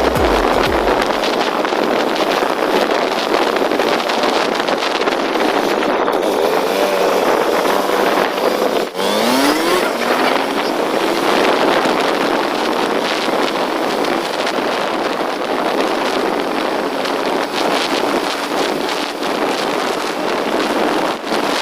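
Motorcycle riding along with a steady rush of wind over the microphone; about nine seconds in the engine note rises briefly as it revs.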